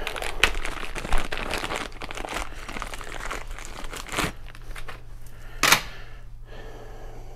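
Plastic packaging crinkling and rustling as a new transfer case drive chain is unwrapped, with a few sharper crackles, the loudest near the end.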